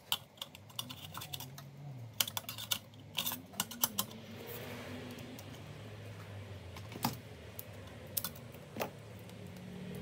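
Clicks and rattles of the plastic-and-metal drive caddy and SATA cables of a Dell OptiPlex 7070 small-form-factor PC being handled while a 2.5-inch SSD is fitted: quick clusters of clicks in the first few seconds, then a few single clicks.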